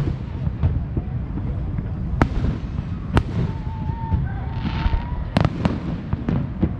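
Fireworks going off all around: a constant rumble of distant booms broken by four sharp cracks. A thin wavering whistle runs for about a second and a half in the middle.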